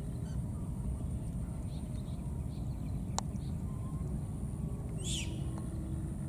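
A baby monkey giving a short, high squeal about five seconds in, over a steady low background rumble.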